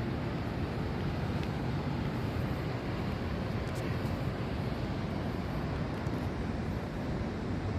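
Steady low rumbling outdoor background noise, even throughout with no distinct events.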